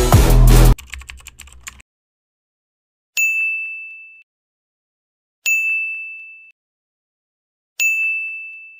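Electronic music cuts off in the first second, then three identical ding sound effects about two and a half seconds apart, each a bright chime with a sharp click at the start that rings and fades out over about a second.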